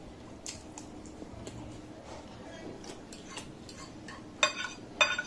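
Soft clicks of eating, then two sharp ringing clinks of a utensil against a dish, about half a second apart near the end.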